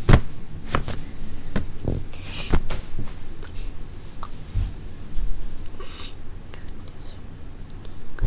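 Irregular light taps and clicks with a few brief rustles, from hands moving close to the microphone. The taps come thickest in the first three seconds, the loudest right at the start.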